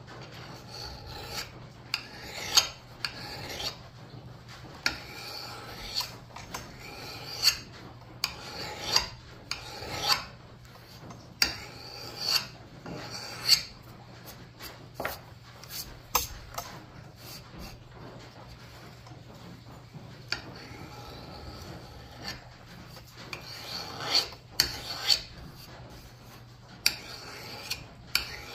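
Hand file scraping across the steel bit of a double-bit axe in irregular strokes about a second apart, some with a metallic ring, with a pause about two thirds through. This is sharpening to work a nick and a burr out of the edge.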